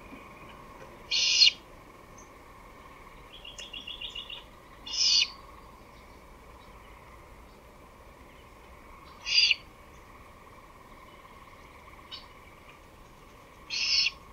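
Great horned owl giving harsh, hissing screeches: four short rasping calls, roughly four seconds apart.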